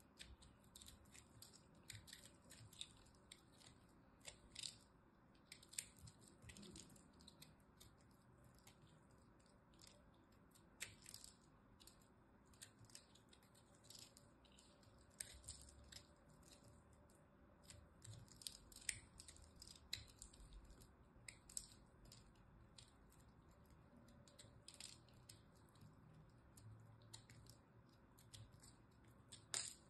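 A small knife blade cutting into a dry, crunchy soap cube, giving quiet, crisp crackles and snaps at irregular intervals, a few a second, as flakes break away.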